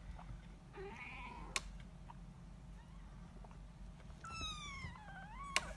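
British shorthair kittens mewing: a short mew about a second in, then a longer, high mew near the end that falls and then rises again. Two sharp clicks, one just after the first mew and one as the second mew ends.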